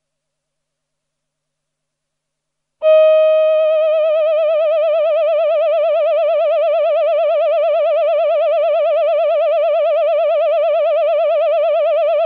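Roland VP-330 synthesizer's Human Voice Male choir sound: a single held note with an even vibrato, coming in suddenly about three seconds in after silence.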